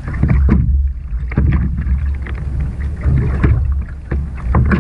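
Sea water lapping and slapping against a kayak's hull at irregular moments, over a steady low rumble of wind on the microphone.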